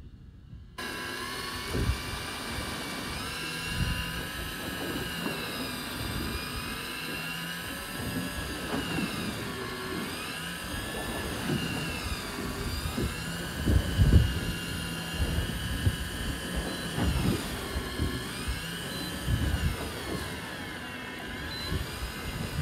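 Electric fishing reel winding in line, its motor whine rising and falling in pitch again and again, over low thumps and splashing of waves against the boat's hull.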